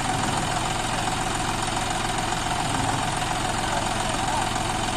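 John Deere tractor's diesel engine idling steadily.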